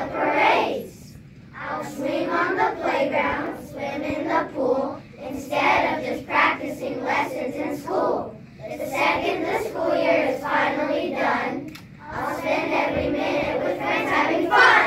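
A class of young children singing together in unison, in phrases of a few seconds with short breaks between them.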